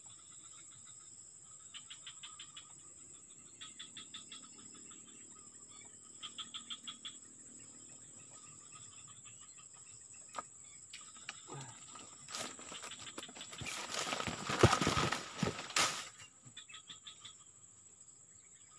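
Insects chirping and droning in the swamp grass: a steady high drone under repeated short trains of rapid chirps. About two-thirds of the way through comes a loud spell of rustling and handling noise lasting a few seconds.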